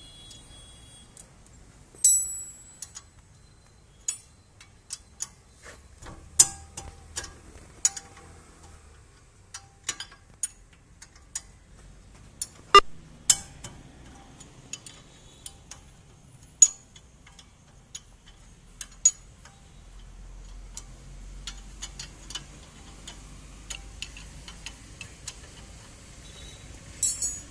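Irregular sharp metallic clinks and clicks of a spanner and hand tools against the steering knuckle and brake parts of a Maruti Celerio's front wheel hub, some clinks ringing briefly. The loudest come about halfway through.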